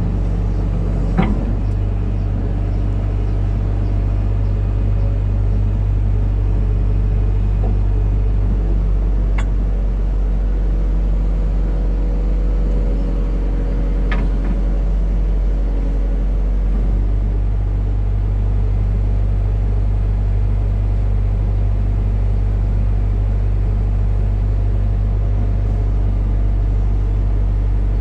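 Hitachi excavator's diesel engine running as a steady low drone, its note shifting slightly about 17 seconds in, with a few faint clicks along the way.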